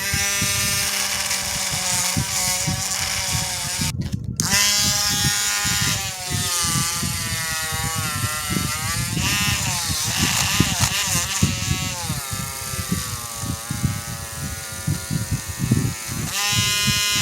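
Electric grinder running, its motor whine dipping and recovering in pitch as it bites into the work. It stops briefly about four seconds in, then starts again.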